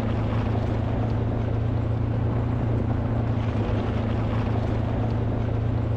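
Electrofishing unit switched on and running with a steady low buzzing hum while shocking the stream for fish.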